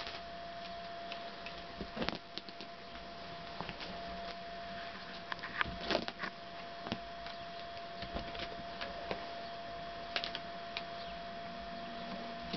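Kittens batting and scuffling at a lattice ball toy on carpet: irregular light taps and clicks, a few louder knocks, over a steady faint hum.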